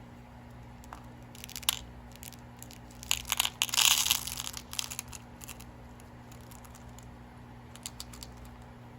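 Crinkling and rustling of plastic packaging as bead strands are handled, loudest about three to five seconds in, followed by scattered small clicks.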